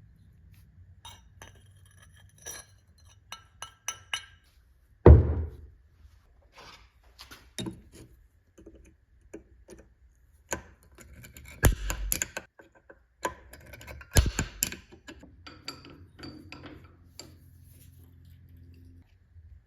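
Irregular clinks and knocks of metal pieces and tools being handled and set down, some ringing briefly, with a heavy thunk about five seconds in and a cluster of louder knocks later, over a faint low hum.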